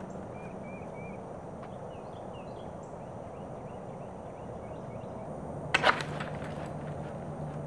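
Small birds chirping over a steady low hum, then a sharp double knock, two quick strikes, about six seconds in.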